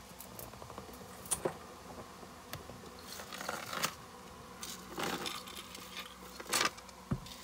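Metal chain necklace clinking and jingling as it is handled and untangled, in a series of short, irregular clicks and rattles.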